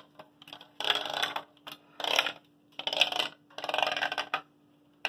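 A small marble rolling in short runs across the studs of a Lego base plate and clattering against the plastic brick walls as the maze is tilted: four rattling bursts, each about half a second long and about a second apart.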